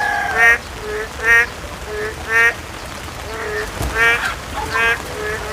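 A rooster's crow trails off in the first half second, followed by short, honk-like calls of domestic fowl repeating about once a second, each with a brief lower note beside it.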